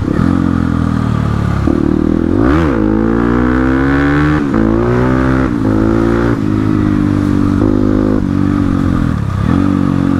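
Crossfire RM250 dirt bike's engine under way, revving with the throttle: a quick blip about two and a half seconds in, then the pitch climbs and drops sharply at gear changes about four and a half and six seconds in.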